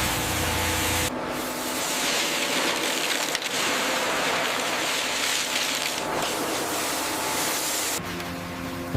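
High-pressure blasting nozzle stripping a ship's hull, a loud steady hiss, with a low rumble in the first second.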